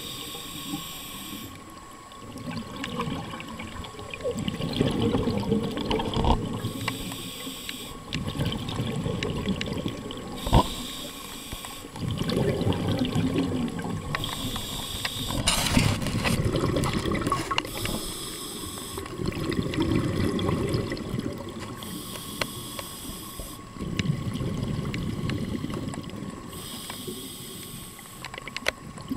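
Scuba diver breathing through a regulator underwater: a short hiss on each inhale, alternating with a low rumble of exhaled bubbles, about one breath every four seconds. A single sharp click about ten seconds in.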